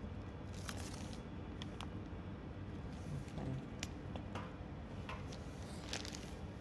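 Chocolate lava cake batter being poured into foil ramekins, with a few soft scrapes and light clicks of utensil against bowl and foil over a steady low hum.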